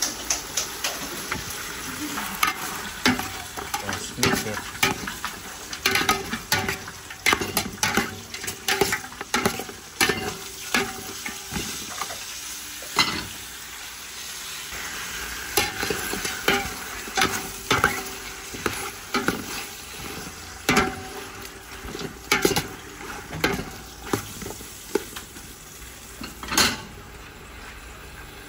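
Chicken pieces sautéing in oil and oyster sauce in a stainless steel pot, sizzling steadily, with irregular knocks and scrapes of a utensil stirring against the pot.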